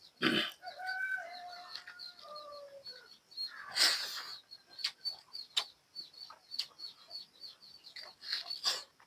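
Close mouth sounds of eating: wet clicks and smacks of chewing, scattered through. A bird's call drops in pitch in the first few seconds, and a faint high chirping repeats rapidly in the background.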